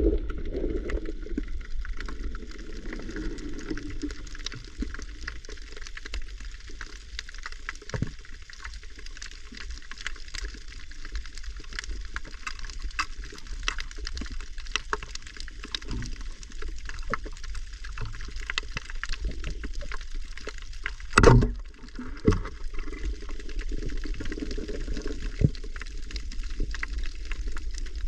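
Underwater ambience picked up by a submerged camera: a steady crackle of many small clicks over a low rumble, with one loud knock about 21 seconds in.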